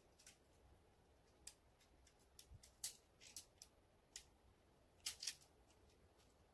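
Faint, sparse clicks of tent-pole sections being fitted together as a shock-corded pole is assembled, about eight irregular clicks over a few seconds.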